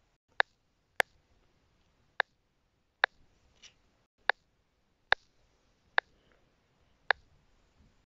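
A series of short, sharp clicks, eight in all, coming about once a second at slightly uneven intervals.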